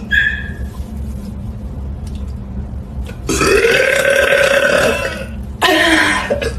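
A woman's long, loud, deep-voiced burps: one of about two seconds a little past halfway, then another starting near the end. A brief high-pitched sound comes right at the start, and a low steady hum runs underneath.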